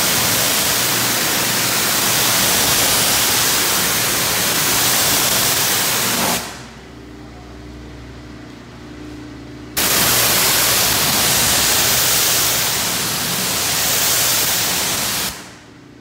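Pressure washer wand spraying water onto a car windshield: a loud, steady hiss of spray that stops about six seconds in, starts again about three and a half seconds later, and stops again just before the end.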